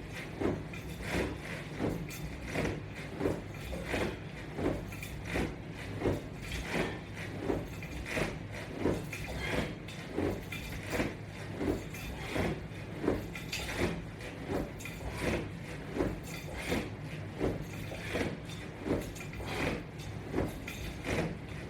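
A person doing crunches with resistance straps: a rhythmic swishing sound repeating about every 0.8 s, over a steady low hum.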